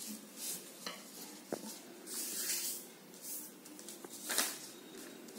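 A sheet of paper rustling and sliding on a tabletop as hands fold it and press the creases flat: several short swishes, the loudest about four seconds in, with a sharp tick near one and a half seconds.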